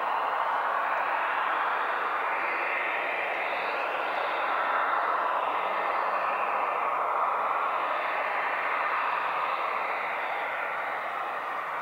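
An unexplained steady rushing drone from the night sky, which at first seemed like a distant airplane. Its tone swells slowly and drifts up and down.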